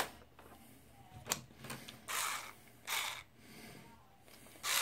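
Cordless electric screwdriver driving a small screw into a projector's lamp cover in several short bursts, each about half a second long, starting about two seconds in. A click comes just before.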